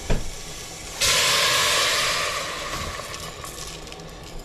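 A knock at the start, then about a second in a sudden loud sizzle as lentils are tipped into the hot, oil-free pot of pork leg pieces, fading gradually over the next few seconds.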